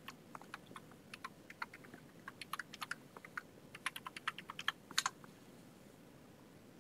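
Computer keyboard typing: faint, irregular keystrokes entering an email address, stopping about five seconds in.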